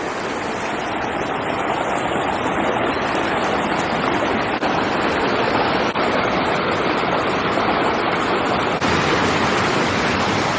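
Big waterfall pouring: a steady, even rush of falling water, with three very brief dips partway through.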